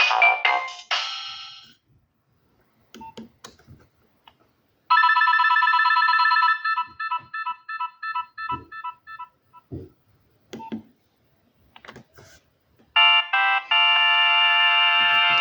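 Nokia 6030 ringtones previewed one after another through the phone's loudspeaker. One ends just after the start, a short one about five seconds in breaks into repeated fading notes, and another starts near the end. Short clicks in the gaps between them.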